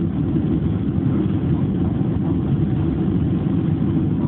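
Steady rumble of cabin noise inside a Boeing 767-300 descending to land, from its engines and the airflow over the airframe.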